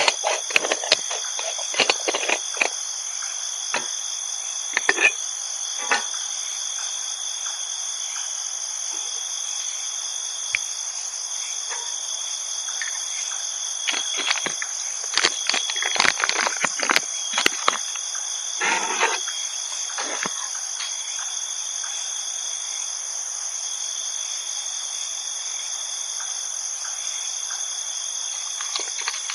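Insects at night in a steady chorus of high-pitched trilling at several pitches. Bursts of clicks and rustling come about a second in, around five seconds, and again between about 14 and 20 seconds.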